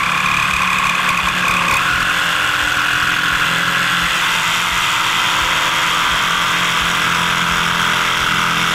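Ridgid JobMax jigsaw cutting through plywood, its motor and reciprocating blade running with a steady buzz under load as it finishes a notch that a track-saw plunge cut stopped short of.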